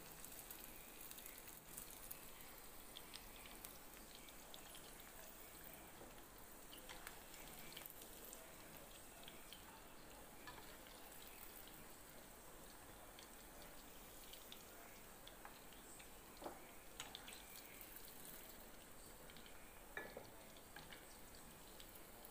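Faint sizzling of beef meatballs frying in cooking oil, a steady hiss with scattered small crackles and pops.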